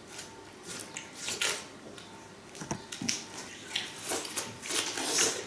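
Watermelon being eaten: a string of short, irregular wet crunching bites and chewing sounds.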